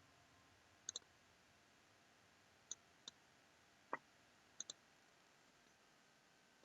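Computer mouse clicking against near silence: a double-click about a second in, a few single clicks, then another double-click a little past halfway.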